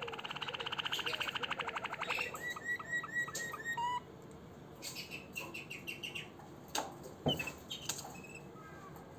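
Harz Roller canary singing: a very fast rolling trill for about two seconds, then a run of separate repeated notes, ending about four seconds in. After that there are only scattered light clicks.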